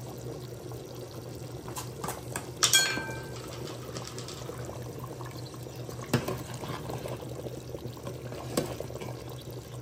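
Black chana curry simmering in a pot with a steady low bubbling, and a few sharp clinks of a utensil against the pot. The loudest clink rings briefly about three seconds in.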